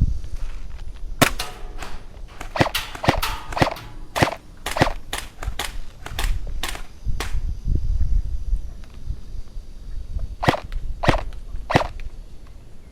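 Airsoft guns firing single shots in irregular sharp cracks. About a dozen come in a quick, uneven burst over the first half, then three more shots follow near the end.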